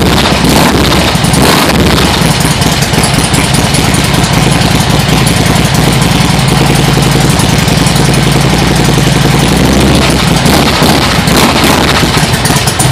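Harley-Davidson touring motorcycle's V-twin engine idling steadily, loud and close.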